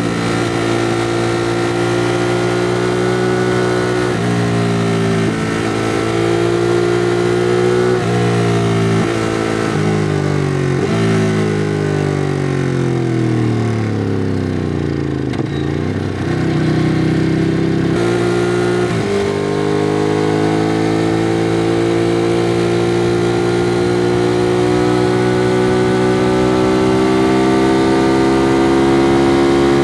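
2016 Ducati Monster 821's L-twin engine on its stock exhaust, accelerating through several quick upshifts in the first ten seconds. Engine speed then falls away for several seconds as the bike slows, and after one more shift it builds steadily in a single gear through the last ten seconds.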